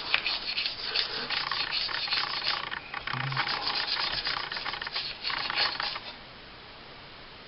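A gun-cleaning brush scrubbing a solvent-sprayed pistol part in quick back-and-forth strokes, stopping about six seconds in.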